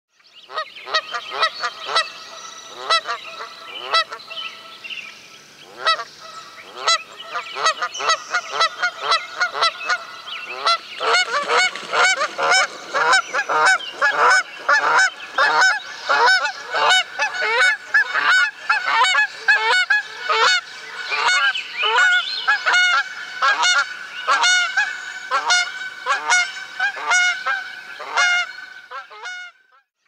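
A flock of geese honking in flight: many short, overlapping calls that come thicker and louder about a third of the way in and keep going until just before the end.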